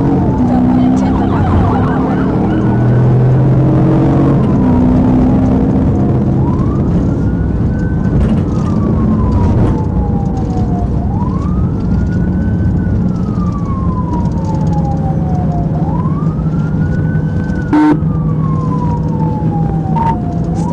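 Police cruiser's siren on a slow wail, heard from inside the pursuing car. Each cycle rises quickly and falls slowly, about every four to five seconds, over steady engine and road noise. A single sharp click comes near the end.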